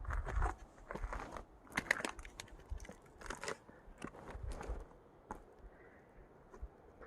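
Apple being bitten and chewed, crisp irregular crunches over the first five seconds or so, then quieter.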